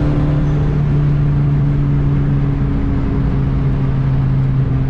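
Turbocharged Honda D16 single-cam four-cylinder engine running under way at steady revs, its drone dropping slightly in pitch about halfway through.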